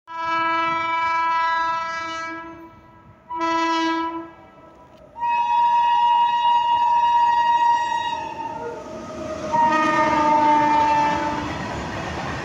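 Indian Railways electric locomotive hauling a goods train, sounding its horn four times: long, short, long, long, the last blast dropping slightly in pitch as the locomotive passes. From about eight seconds in, the rumble of the freight wagons rolling by builds up.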